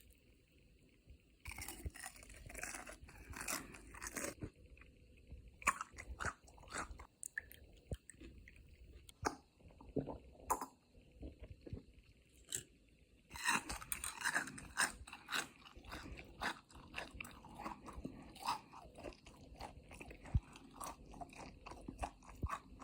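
Close-up chewing of crispy boneless fried chicken: crunchy bites and chewing in bursts, thinning to scattered single crunches in the middle, then dense again from about halfway on.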